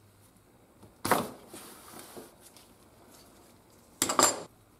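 Screwdriver prying the loose insert out of a TFSI engine's vacuum pump housing: a sharp knock about a second in, some light scraping after it, and a short clatter of metal clicks near the end.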